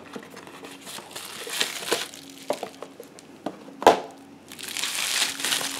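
Cardboard knife box being opened and handled: scattered taps and scrapes, with one sharper knock about four seconds in. Plastic bubble wrap then crinkles as it is handled.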